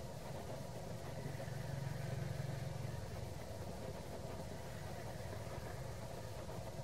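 Steady low hum of a running engine, swelling slightly about a second in and easing off again.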